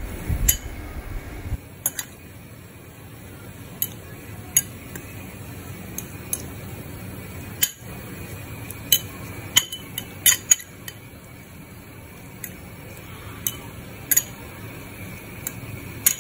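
Metal fork stirring avocado salsa in a bowl, the fork clicking against the bowl at irregular moments, roughly one click a second.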